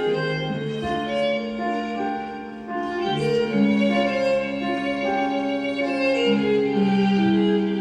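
Instrumental music on bowed strings, violin and cello, playing slow, long-held notes.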